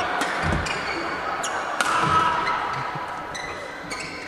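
Badminton rally: several sharp racket strikes on the shuttlecock, with short high squeaks of court shoes on the floor mat over a steady hall murmur.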